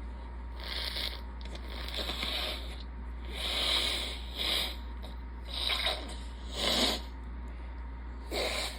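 A person sniffing hard through a congested nose, about seven short sniffs spaced irregularly over several seconds, as she tests whether the blocked right nostril has cleared.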